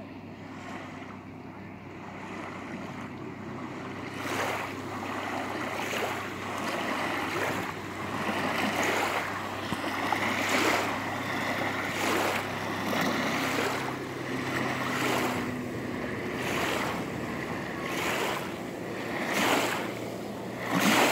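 Small waves washing onto a sandy shore, coming in about once a second and getting louder after about four seconds.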